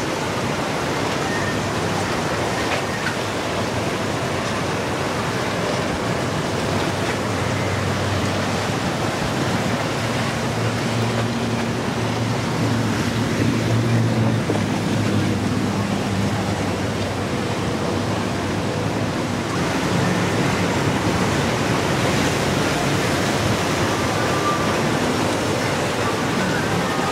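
Steady wind and surf noise, with the deep drone of a large motor yacht's engines as it passes close at speed, loudest about halfway through.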